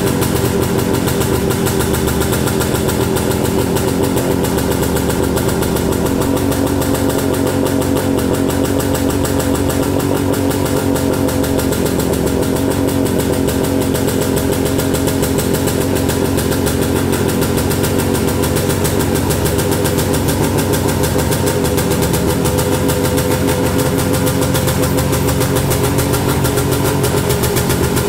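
Jawa 250 single-cylinder two-stroke motorcycle engine idling steadily after a cold start, a fast, even two-stroke beat from its twin exhausts.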